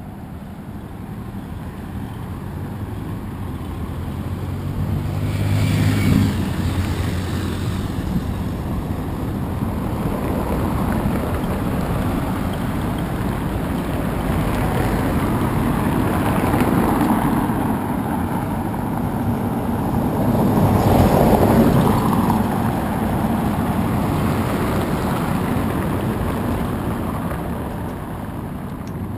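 City street traffic: cars and motorcycles going by on the road beside the footpath, with a steady hum of engines. It swells twice as vehicles pass close, about a fifth of the way in and again about two-thirds of the way in.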